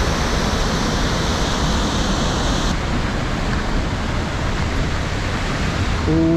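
Large waterfall rushing with a loud, steady roar of falling water. The higher hiss drops a little just under halfway through.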